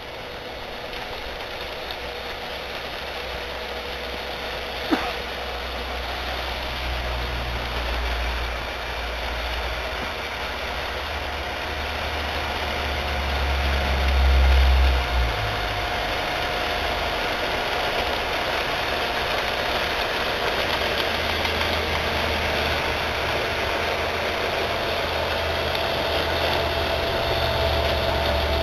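Homemade rotary snowplow on a G-scale garden railway, its 12-volt battery drill running steadily to spin a vacuum-cleaner impeller through the snow: a constant whine over a steady hiss. A low rumble swells and fades around the middle.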